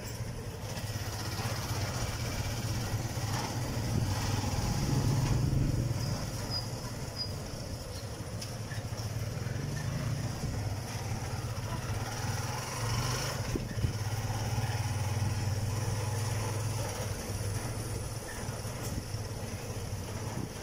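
Small motorcycle engine running steadily while riding along a street, its pitch rising and falling with the throttle, swelling about four to six seconds in and again around ten seconds in.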